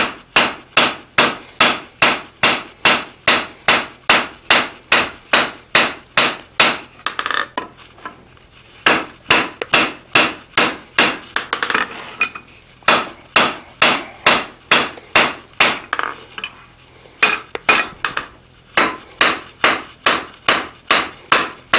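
Hand hammer striking red-hot steel bar stock on the anvil face, about three blows a second in runs with short pauses, beveling the edge of a forged bottom butcher tool.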